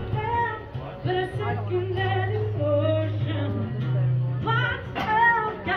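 Music: a song with a sung melody over a steady low bass line.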